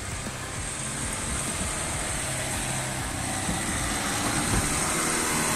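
LDV T60 Max ute's engine working under load as it climbs a rutted soft-sand track, growing louder as it comes closer.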